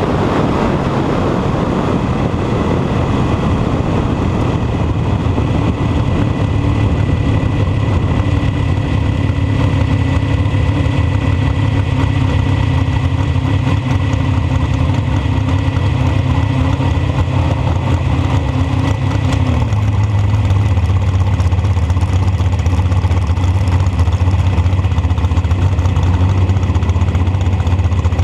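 A dragster's engine heard from its own cockpit, running slow and steady as the car coasts down after a run. Wind rush fades over the first few seconds, and about two-thirds of the way through the engine note drops to a lower, steady idle.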